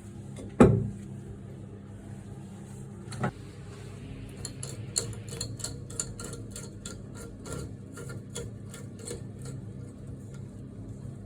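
Hands working on toilet cistern parts: a sharp knock, a second knock a few seconds later, then a run of light clicks and taps, about two or three a second, over a low steady hum.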